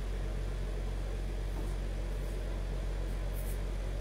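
Steady low hum with an even hiss: room tone, with no distinct event.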